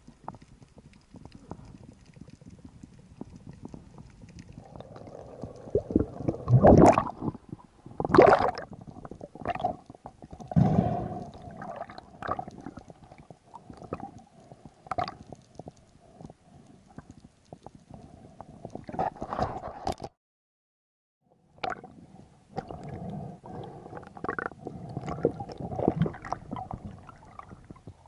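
Underwater water noise around the camera: gurgling and rumbling, with several louder surges a few seconds in. The sound cuts out completely for over a second about two-thirds of the way through.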